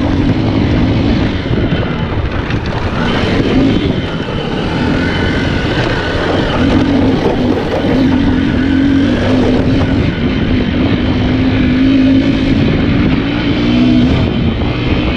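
Small single-cylinder four-stroke motorcycle engine running under way, its pitch wavering up and down with the throttle, over a steady rushing noise.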